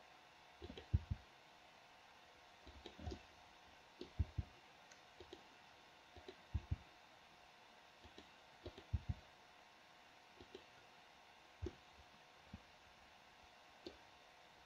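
Faint, irregular clicks of a computer mouse and keyboard, about twenty of them, some in quick pairs, over a low steady background hum.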